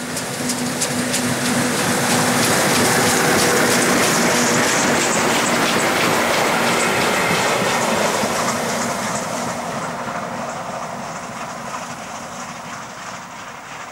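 A train passing: an FS E.626 electric locomotive hauling a Gr.740 steam locomotive and a baggage van, wheels clicking over the rail joints. It grows louder to a peak a few seconds in, with a steady hum early on, then fades as it draws away.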